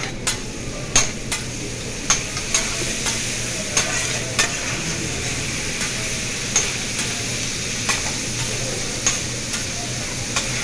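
Chicken sizzling on a hot hibachi flat-top griddle, with sharp metal clinks and scrapes from the chef's spatula and fork against the steel every second or so as he stirs and turns the pieces.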